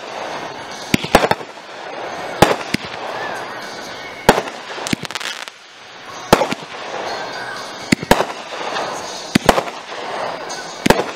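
Aerial fireworks bursting overhead: sharp bangs about every one and a half to two seconds, several coming in quick pairs, over a steady background hum of voices and crackle.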